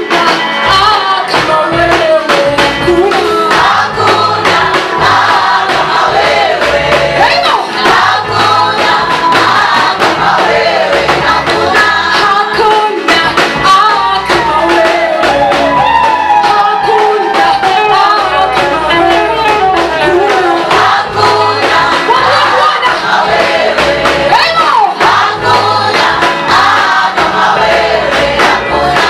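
Gospel praise song: a group of voices singing together over band accompaniment, with a steady drum beat and bass.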